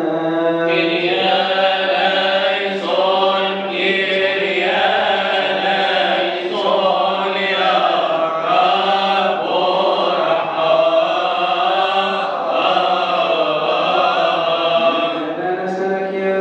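Coptic Orthodox liturgical chant: a male voice chanting unbroken, melismatic lines through a microphone, with a steady held tone underneath.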